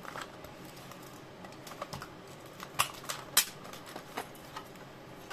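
Plastic blister packaging of a Hot Wheels card being handled and pried open by hand: scattered clicks and crackles, with a few sharper snaps about three seconds in.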